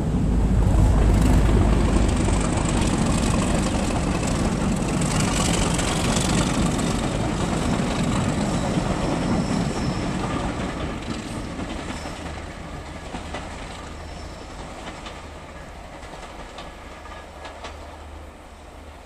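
Diesel locomotive hauling passenger coaches past and away around a curve: a heavy engine rumble, loudest in the first couple of seconds, then the wheels clicking over the rail joints as the coaches go by, the whole sound fading as the train draws away.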